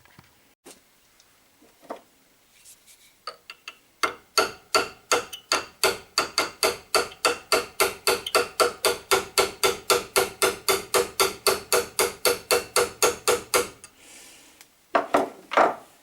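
A hammer striking something that rings with a pitched tone, in a fast, even run of about four blows a second for roughly ten seconds, after a few light taps. Two louder knocks follow near the end.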